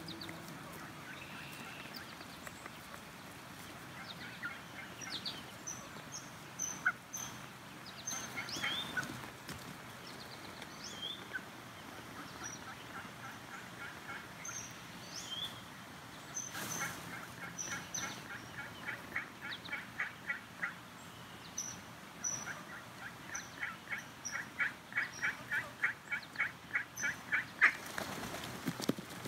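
Waterfowl calling: scattered short, high peeps, and several runs of rapid repeated clucking notes, about nine a second, each run lasting a few seconds and the last run the loudest.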